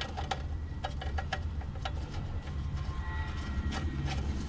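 A few light, scattered metallic clicks from a nut being threaded back onto a bolt by hand, over a steady low hum.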